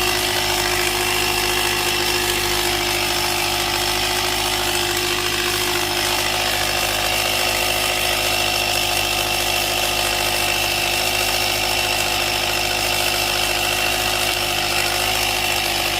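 Portable tyre air compressor running steadily while it inflates a leaking car tyre, a constant motor drone with a few fixed tones.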